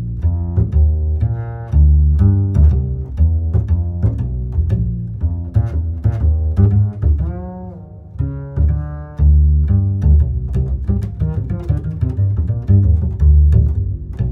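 Background music with a heavy bass line and plucked and bowed string-like notes in a steady rhythm.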